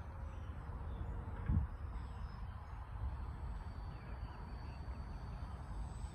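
Wind rumbling on the microphone, with one bump about a second and a half in and faint bird chirps. From about halfway, a faint thin high whine comes in from the model jet's distant 50 mm electric ducted fan.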